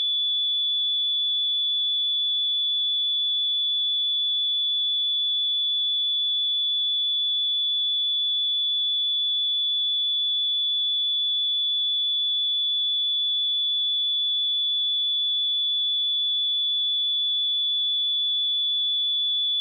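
A steady, unbroken 3451 Hz pure sine-wave test tone, a single high-pitched whistle-like pitch held at constant level.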